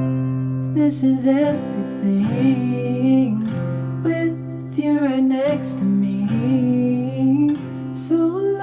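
A song with strummed acoustic guitar and a singing voice, played back through a JBL SCS 178 satellite speaker as a sound test.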